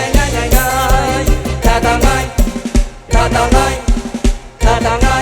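Live mor lam band playing an up-tempo toei instrumental passage: a heavy bass drum beat under a wavering melodic lead line. The bass drops out about three seconds in and comes back about a second and a half later.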